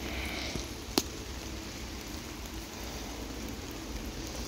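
Rain falling steadily, with a single sharp tap about a second in.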